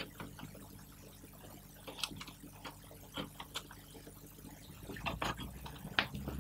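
Scattered small clicks and scrapes of a screwdriver and hands working at a VFD's screw terminal block, fitting crimped wire connectors into the power terminals. The clicks come in small clusters, busiest near the end.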